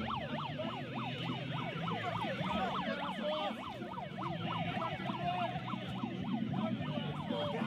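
A siren yelping, its pitch sweeping up and down several times a second, with more than one sweep overlapping.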